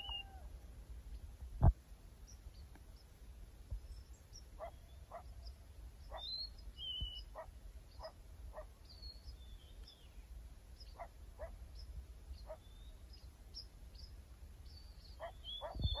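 Faint coyote chorus: many short yips and brief high gliding calls scattered throughout. A single thump about two seconds in.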